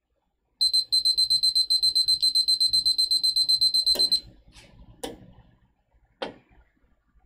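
Countdown timer app's alarm beeping rapidly on one high tone for about three and a half seconds, signalling that the 15-second timer has run out. It is followed by a few short knocks.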